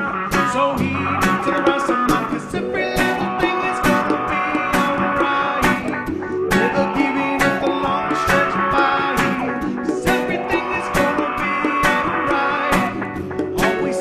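A rock-reggae band playing live: electric and acoustic guitars over a steady drum beat.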